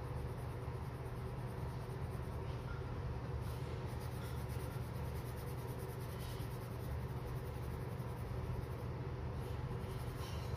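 Deli Arte Nuevo watercolour pencil scratching back and forth on paper as a swatch box is shaded in, over a low steady hum.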